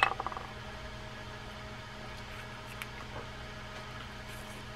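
Small metal parts of a spinning reel being handled as the crosswind gear is seated on its stud in the reel case. A brief rattling clatter comes at the very start, then only a few faint clicks over a steady low hum.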